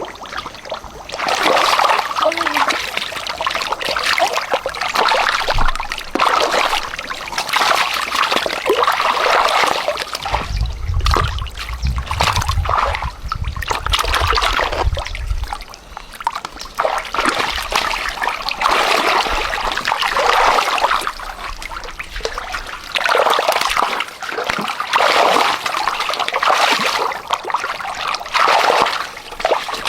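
Water splashing and trickling in irregular surges, with a low rumble for several seconds around the middle.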